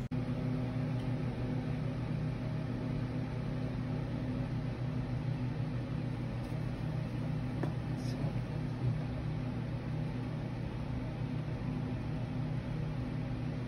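A steady low mechanical hum with a few fixed tones and no change in pitch or level.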